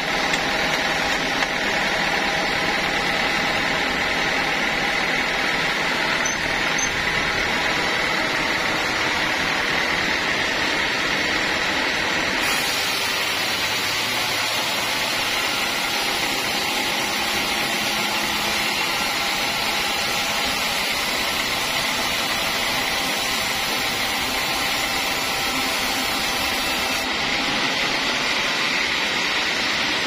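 Sawmill machinery running steadily: a dense mechanical noise with a faint, steady high whine.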